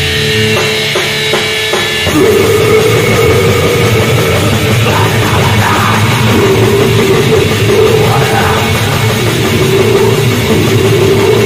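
Death metal recording, dense and distorted. For about the first two seconds it plays a sparser passage of a few evenly spaced hits, then gives way to a loud, unbroken wall of sound.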